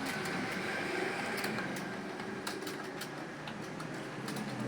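Computer keyboard keys clicking at an irregular typing pace, several keystrokes a second, over a steady background hum.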